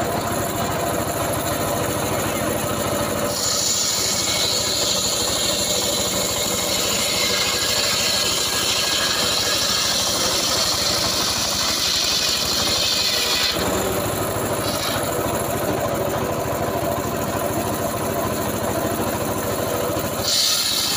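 Homemade engine-driven circular saw bench running steadily. From about 3 s to about 13 s the blade rips lengthwise through a log, adding a loud high rushing rasp of cutting and flying sawdust over the engine. A brief bite into the wood comes near 15 s and another just before the end.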